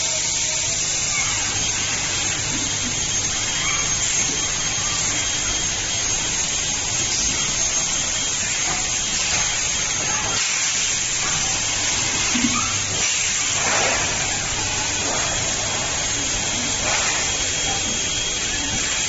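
Steady running noise of an automatic molded pulp tableware production line: a constant high hiss over a low hum and a faint steady whine, with a few brief louder swells of hiss.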